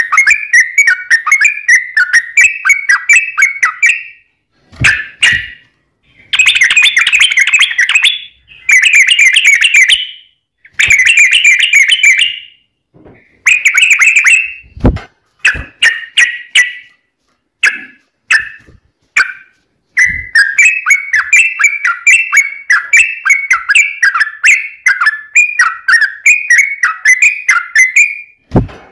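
Yellow-vented bulbul singing long runs of rapid, bubbling, chattering notes, broken by short pauses. A few brief low thumps sound among the phrases.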